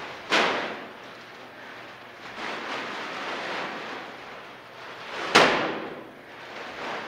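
Heavy black plastic trash bags filled with clay slammed down onto a concrete floor twice, about five seconds apart, each a sharp slap with a short echo off the bare room. In between, the plastic bags rustle and scrape as they are dragged and shifted.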